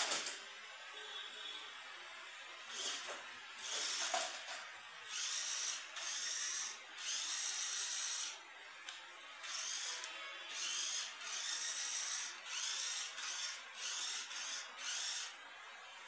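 Small RC rock crawler's electric motor and gears whining in about a dozen short throttle bursts, some rising in pitch, as the car crawls slowly up a ramp.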